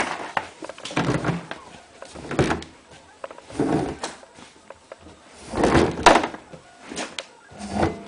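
Laundry being pulled by hand out of a front-loading washing machine drum: fabric rustling and soft thumps against the drum, in several uneven bursts.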